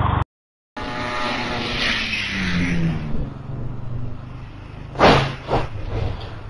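Street traffic with an engine passing, then a loud crash about five seconds in and a second, smaller bang half a second later. It is a motorcycle colliding with a turning SUV and going down on the road with its riders.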